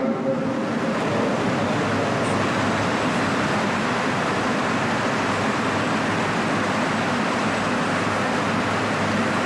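Steady, even rushing noise of electric fans running.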